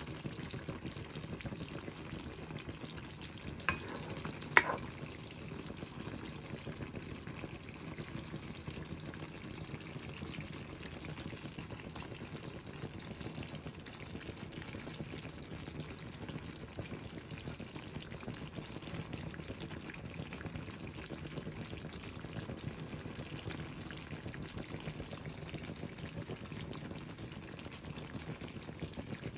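Beef steak and onions simmering in sauce in a pan, a steady sizzle and bubbling. Two sharp knocks come about four seconds in.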